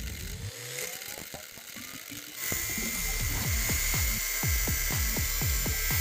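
Background music with a repeating bass beat over an angle grinder's abrasive disc grinding a spring-steel kukri blade. The grinding turns louder a little over two seconds in, a steady high whine with hiss.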